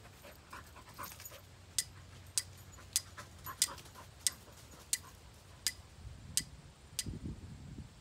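Ferrocerium rod struck with a metal scraper about eight times, one sharp scrape roughly every two-thirds of a second, throwing sparks into a dry grass tinder bundle to light a fire. Dry straw rustles near the end as the bundle is handled.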